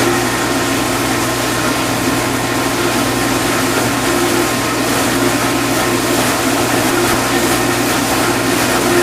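Vintage KitchenAid Supurba dishwasher running its main wash, a steady motor-and-pump hum under the even rush of water spraying inside the tub.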